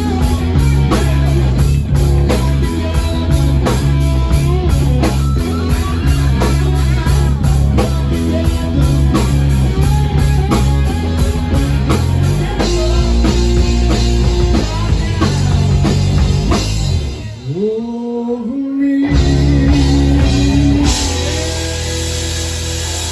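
Live rock band playing: a male singer with electric guitar, bass and drum kit. About seventeen seconds in the band drops out briefly under a sliding note, then comes back in, and near the end the low instruments stop under ringing cymbals.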